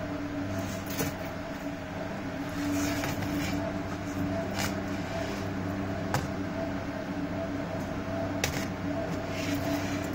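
Steady machine hum with several held tones, with a few short clicks about a second in, near the middle and later on.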